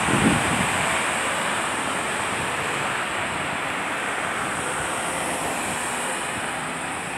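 Cars passing on a street, a steady rush of tyre and engine noise that eases slightly toward the end, with a short low thump right at the start.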